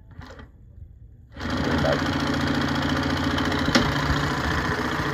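Consew 255RBL-25 walking-foot industrial sewing machine starting up about a second and a half in and then running steadily, stitching through heavy nylon webbing, with one sharp click about halfway through.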